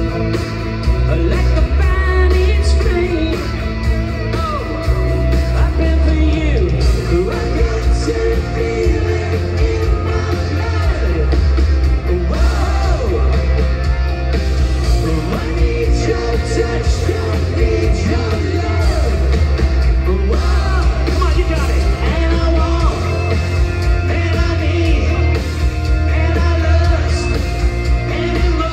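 Live rock band playing loud: a lead singer over electric guitar, bass and a steady rock drum beat, heard through the stage PA.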